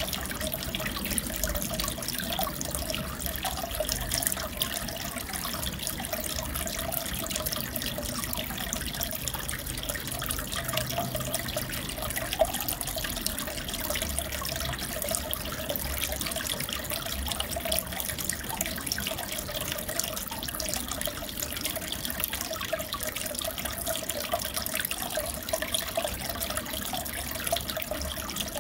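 Aquarium water running and trickling steadily, with a constant fine crackle of splashing.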